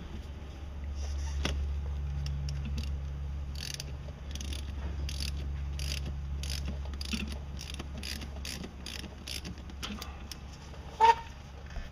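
Hand ratchet clicking as it is swung back and forth, about two or three clicks a second, turning the installer tool that threads the tapered insert into the inlet water hose on a MerCruiser Bravo bell housing. A single sharp metal clink near the end, over a low steady hum.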